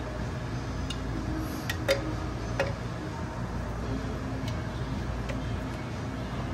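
Sharp metallic clicks and taps as a forklift drum brake's shoes and spring hardware are handled on the backing plate, about six in all with the loudest about two seconds in, over a steady low hum.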